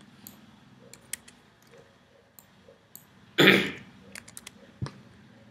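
Scattered light computer-keyboard key clicks as numbers are typed into a form field, with a loud, short throat noise about three and a half seconds in and a sharper click near the end.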